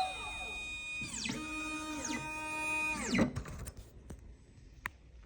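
Xhorse Dolphin II key cutting machine's motors whining in steady tones that drop in pitch several times and wind down to a stop about three seconds in. A few light clicks follow.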